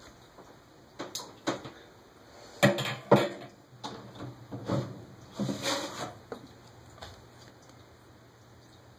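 A scattering of knocks and clunks, about seven over six seconds, as things are handled and moved about, with a faint low hum coming in about halfway.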